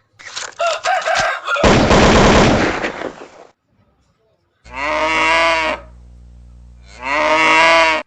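Aseel roosters crowing: two long crows that rise and fall in pitch, one about five seconds in and another near the end, over a faint low hum. They follow a loud, harsh, rough burst of sound in the first three and a half seconds.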